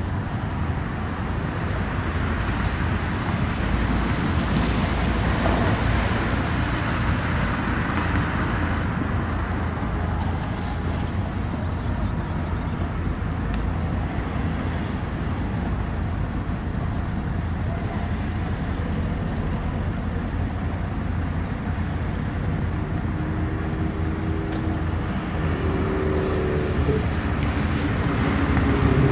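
Small city-centre street ambience: light traffic with a steady wash of road noise. A vehicle swells past a few seconds in, and near the end a pitched engine note grows louder as another vehicle approaches.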